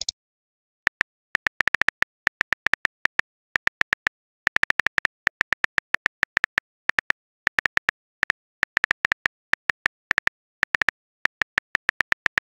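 Phone keyboard tap sounds as a text message is typed out: quick, irregular clicks, several a second, in bursts with short pauses between words.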